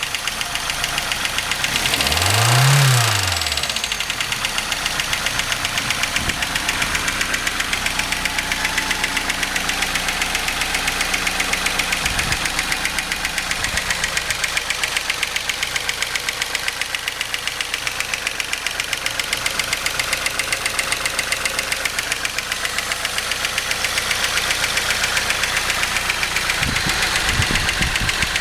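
Toyota 3T-GTEU turbocharged twin-cam four-cylinder engine revved briefly about two to three seconds in, then idling with a fast, even ticking knock: the extraneous noise under investigation.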